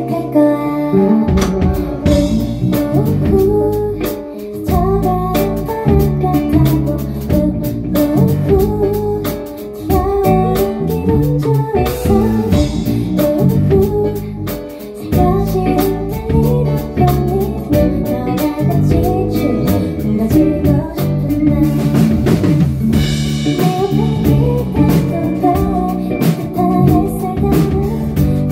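Live band music: a woman singing a pop ballad melody over guitar and drums, with a steady beat.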